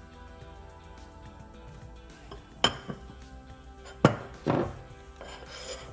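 Metal spoon clinking against a ceramic mug and plate a few times, the loudest about four seconds in, over background music with steady held notes.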